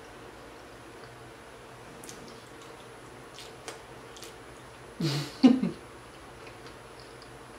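Close-miked mouth sounds of someone eating loaded nachos: a few faint wet chewing clicks, then, about five seconds in, a short hummed "mm" of enjoyment, the loudest sound.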